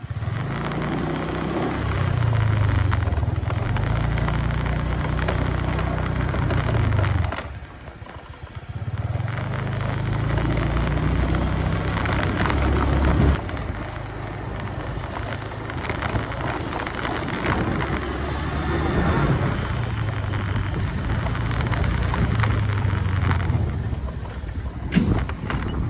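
Motorbike engine running under way, with wind and road noise over the microphone; the engine eases off briefly about a third of the way through, then picks up again.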